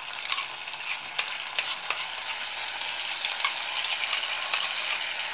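Onions, chana dal and peanuts frying in hot oil in a pan: a steady sizzle with small, scattered crackles.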